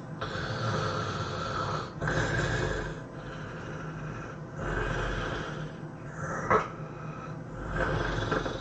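A person snoring heavily: a run of loud snoring breaths, one every second or two, with a short sharp snort about six and a half seconds in.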